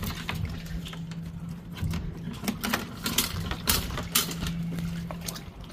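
Steel security chain links clinking and a snap hook clicking as it is clipped onto the boat cover's corner tie-down, a string of sharp clicks and ticks over a steady low hum.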